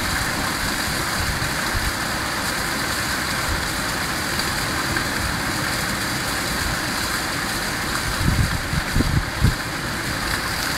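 Hail and rain falling steadily on tiled roofs and awnings during a small hailstorm. A few low thumps come near the end.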